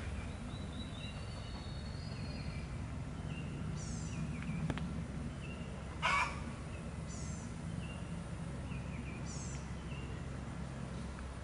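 Birds chirping outdoors, with short high whistled notes and quick descending trills every couple of seconds, over a steady low background rumble. A short sharp noise comes about six seconds in.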